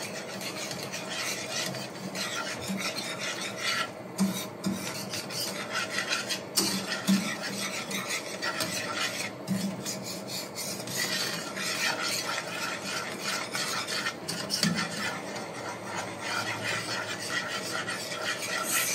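A wire whisk scraping and stirring around a pan of milk gravy as it thickens, a continuous rasping with small irregular strokes against the pan.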